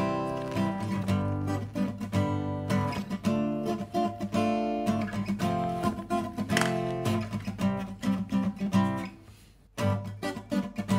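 Background music of strummed acoustic guitar chords. It fades out briefly near the end, then comes back in abruptly.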